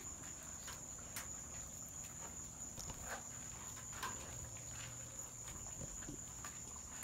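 Night insects, crickets, trilling steadily at a high pitch, with a few faint scattered clicks.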